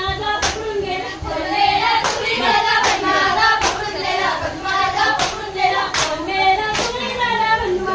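A group of women singing a Konkan jhakadi folk song, with sharp claps keeping a steady beat about every 0.8 seconds.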